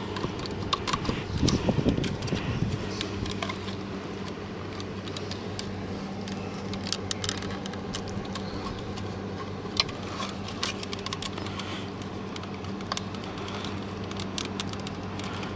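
Plastic wiring-harness connectors being handled and pushed at by hand, giving scattered small clicks and rattles, while the door-actuator connector refuses to seat. A steady low hum runs underneath.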